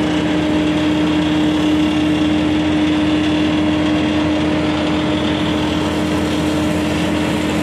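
Heavy diesel engine of a tipper truck idling steadily close by, a constant hum with a hiss over it, while the truck spreads gravel for a road base.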